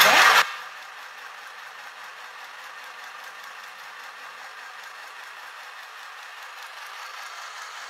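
Mini electric chain-stitch sewing machine (CGB SM-002) switched on with a short loud clatter, then running steadily and stitching through fabric with a fast, even rattle. It is sewing continuously under its power switch rather than the pedal.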